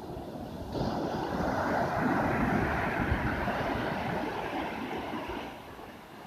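A sea wave breaking on the shore: the surf noise swells, rushes in suddenly about a second in, then washes out and fades near the end.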